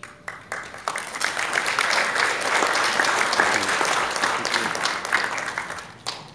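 Audience applauding at the end of a piano piece: scattered claps that quickly swell into full applause, then thin out and stop near the end.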